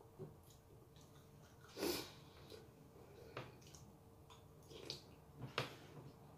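Close-up eating with a metal spoon from a ceramic mug: a loud slurp about two seconds in, then chewing with a few sharp clicks from the spoon and lips.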